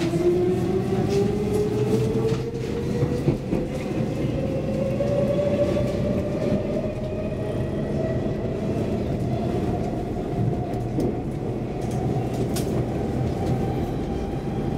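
Stockholm Metro C14 train heard from inside the car as it accelerates away from a station: the traction motors' whine climbs steadily in pitch over a constant rumble of wheels on rail, with a few brief clicks.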